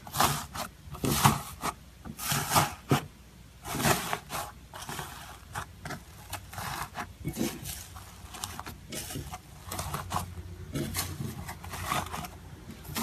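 Irregular scraping and rubbing strokes, a few loud ones in the first four seconds, then softer, quicker ones, over a low steady hum.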